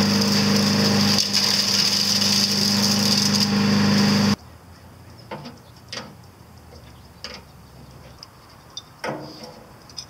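Harbor Freight Predator 212cc chipper shredder running steadily while a can of material is tipped into its hopper: the single-cylinder engine hums evenly under a high hiss. The sound cuts off abruptly about four seconds in, leaving a few light scattered knocks and clicks.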